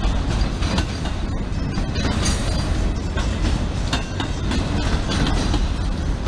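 Freight train of autorack cars rolling past: a steady low rumble with the wheels clicking over the rail joints.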